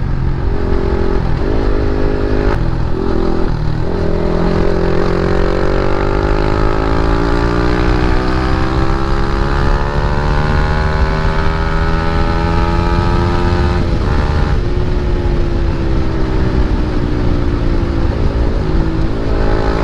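Motorcycle with an aftermarket Akrapovic exhaust pulling through the gears: short breaks in the engine note about two and four seconds in, then a long steady climb in pitch for about ten seconds, a gear change about fourteen seconds in, after which the note holds and slowly eases. Wind noise runs under it.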